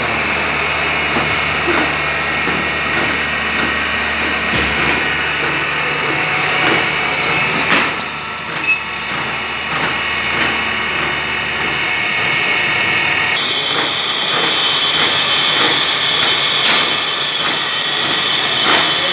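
CNC milling machine cutting a cast aluminium gearbox housing under flood coolant. The spindle and cutter give a steady high whine with a hiss. About two-thirds through, a higher tone comes in, and there are a few sharp clicks.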